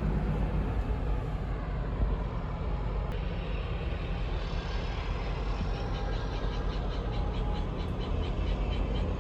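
A car driving, with a steady low rumble of road and engine noise. A faint, rapid high ticking joins in about two-thirds of the way through.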